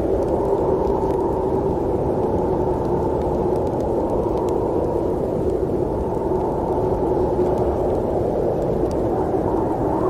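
Snowstorm wind blowing steadily, a low, muffled rushing noise.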